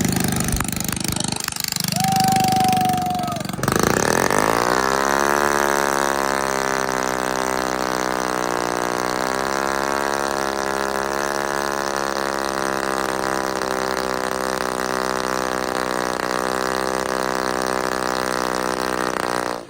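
A car engine blips and settles within about a second into a steady idle that wavers slightly, after a burst of noise with a brief steady tone in the first few seconds.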